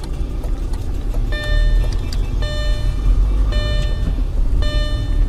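Car driving, a steady low road and engine rumble as heard inside the cabin. From about a second in, a single-pitched beep repeats in half-second pulses about once a second.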